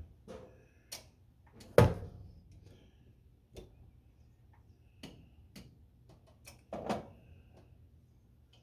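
Scattered metallic clinks and knocks of tools and engine parts being handled, some with a short bright ring. A sharp knock comes about two seconds in and another near the seven-second mark.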